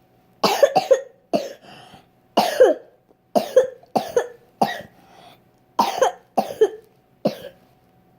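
A person coughing in a fit: about a dozen short, sharp coughs in quick clusters of two or three, stopping about seven seconds in.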